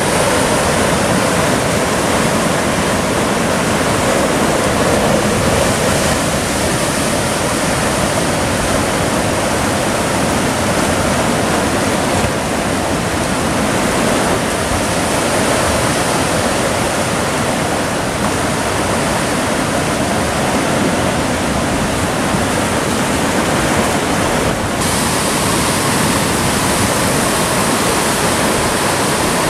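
Sea surf breaking and churning against a rocky volcanic shore: a loud, steady rushing of white water, a little hissier in the last few seconds.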